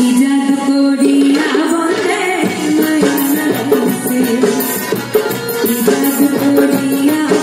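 Live band music in a folk style: tabla, harmonium and banjo playing a tune, with a woman singing into a microphone over a PA.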